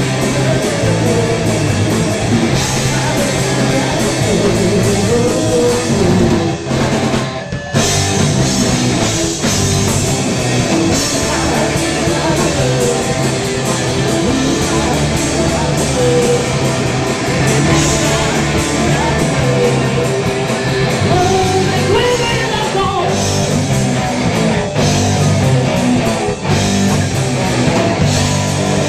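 Live rock band playing loud: electric guitar, bass guitar and drum kit, with singing over the top. The band drops out briefly about seven seconds in, then comes back in.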